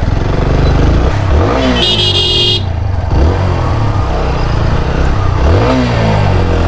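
TVS Apache RTR 160 4V single-cylinder motorcycle engine running on the road, its revs climbing several times. A high horn sounds briefly about two seconds in.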